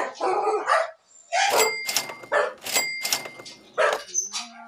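A pet dog barking in a quick series of short, sharp barks.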